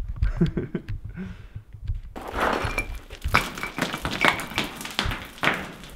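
A rock dropped down a mineshaft, clattering and knocking against the rock walls as it tumbles down. The clatter starts about two seconds in and carries on as a rapid string of knocks.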